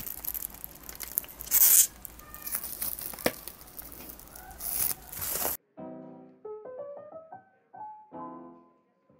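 The wrapping of a new pre-stretched canvas being torn and crinkled open, with two loud ripping bursts and a sharp click. A little over halfway through it cuts off and gives way to soft piano-like keyboard background music.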